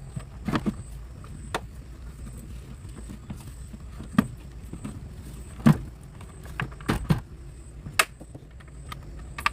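Irregular sharp clinks and knocks, about ten of them spread unevenly, over a steady low rumble.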